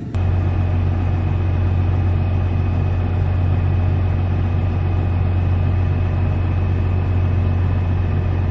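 Heavy engine of harvest machinery running with a steady low drone, cutting in suddenly right at the start and holding unchanged.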